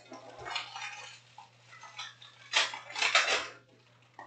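Panini Prizm trading-card pack wrappers crinkling and cards being handled and dropped onto stacks, in a few rustling bursts, the loudest from about two and a half to three and a half seconds in.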